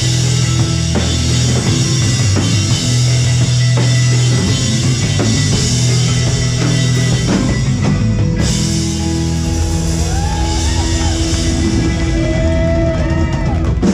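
Live rock band playing an amplified song: electric guitar, bass and drum kit. About ten seconds in, a lead guitar plays bending notes over the steady beat.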